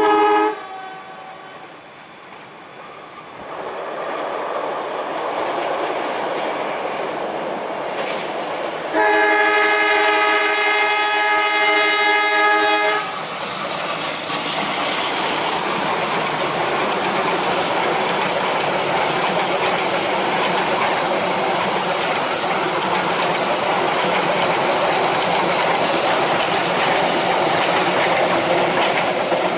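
Passenger train's diesel locomotive giving a short horn toot, then a long horn blast of about four seconds as it comes on, followed by the steady rumble of the locomotive and the rattle and clatter of the coaches rolling past on the rails.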